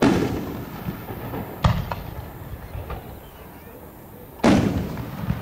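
Aerial firework shells bursting overhead: a loud boom at the start and another about four and a half seconds in, with a smaller, sharper bang about a second and a half in, each trailing off briefly.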